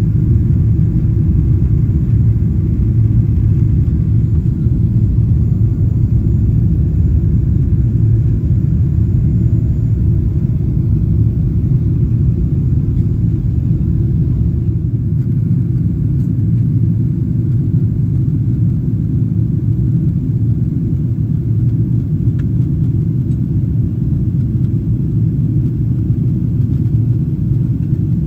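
Steady low cabin rumble of a Boeing 777-300ER climbing after takeoff: its GE90-115B jet engines at climb power and the rush of air past the fuselage, heard from a passenger seat.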